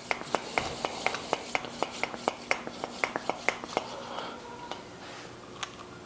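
Shock pump being worked on a RockShox Revelation fork's air spring: rapid, even clicking, about four clicks a second, as air goes in to push the rod back out. The clicking stops a little before four seconds in, and a single click follows near the end.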